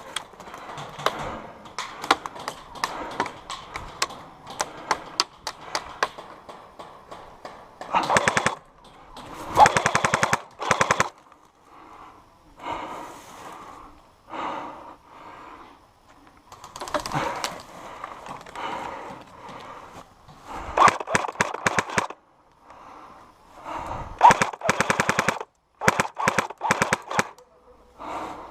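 Airsoft guns firing: scattered single shots and several rapid full-auto bursts of one to two seconds each.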